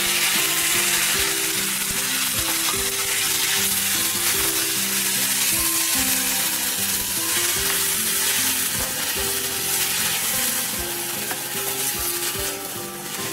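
Diced ridge gourd and tomato sizzling in hot oil in a stainless steel kadai, stirred with a wooden spatula that scrapes and knocks against the pan. Soft background music plays under it.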